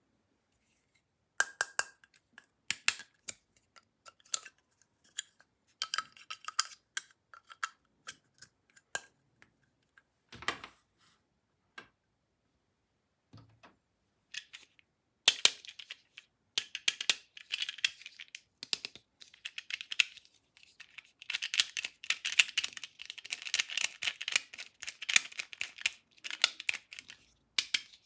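Scattered sharp plastic clicks and knocks from toys and packaging being handled. About halfway through, a dense crackling rustle like plastic packaging being crumpled or torn open takes over.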